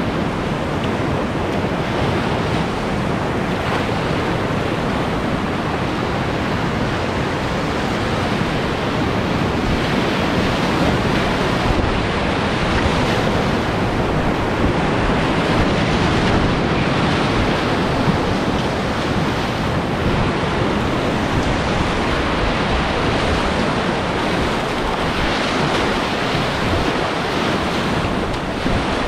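Whitewater rapids rushing and churning close around a kayak running the rapid, a steady, even wash of water noise.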